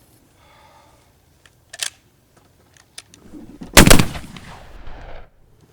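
A Swiss K31 7.5x55 Schmidt-Rubin straight-pull rifle fires a single shot a little under four seconds in. The report rolls away for over a second before cutting off abruptly. A small sharp click comes about two seconds earlier.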